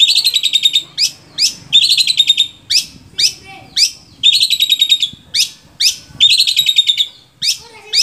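Long-tailed shrike (cendet) singing loudly: four fast rattling trills, each under a second long, alternating with single sharp notes that sweep steeply upward in pitch.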